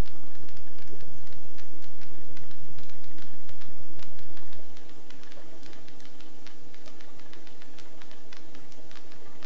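Helicopter in flight heard from the cockpit: a steady engine and rotor drone with a hum of several even tones, overlaid by many scattered sharp ticks. The whole sound drops somewhat in level about halfway through.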